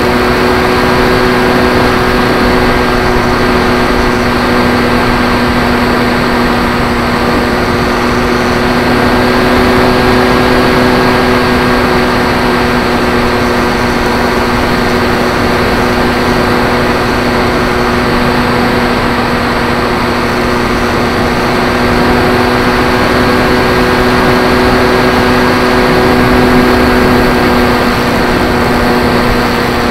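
On-board sound of a Zeta Phantom FX-61 flying wing's 3542 brushless electric motor and propeller, run at low throttle: a steady, even hum over a loud rushing noise, swelling a little now and then. The camera is mounted without vibration damping.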